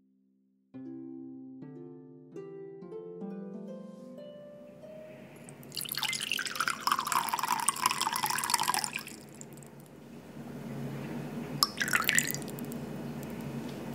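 A short rising run of plucked musical notes, then water poured from a glass measuring cup into a glass bowl for about three seconds. Near the end comes a brief second pour, a spoonful of vinegar trickling into the water.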